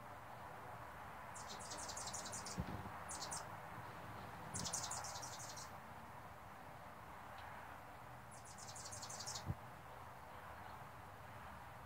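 Hummingbird chattering: four short runs of rapid, high, dry chips, about nine a second. This is the aggressive chase call of a hummingbird fighting over a feeder.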